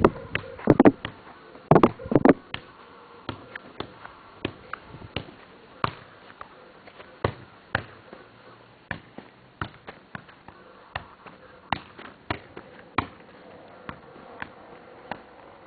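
Football being juggled: a run of short, dull ball touches off foot, knee and thigh, roughly two a second, with a few louder thumps about one and two seconds in.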